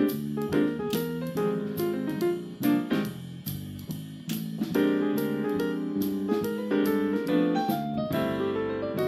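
Piano music playing: many short notes in a steady rhythm.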